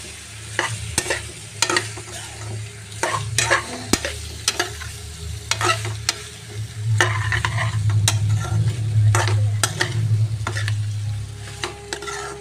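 A spatula stirring macaroni and red sauce in a metal pan on the stove, scraping and knocking against the pan in irregular strokes while the pasta fries. A low steady hum runs underneath, stronger in the second half.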